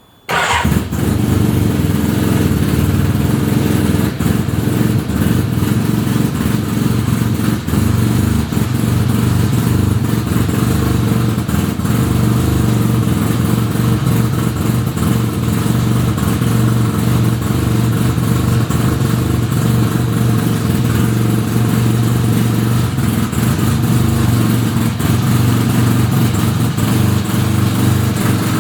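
1975 Suzuki RE5's single-rotor Wankel rotary engine catching at the start and then running steadily at idle. An abnormal noise runs along with it, which the owner traces to the transmission after a full restoration.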